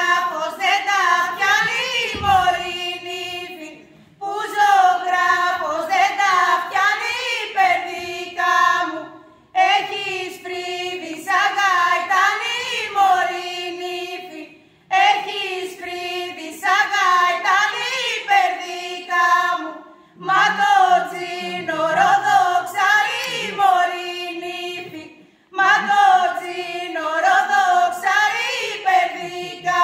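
A group of women singing an unaccompanied Epirote folk song together, in sung phrases of about five seconds with short breaks between them.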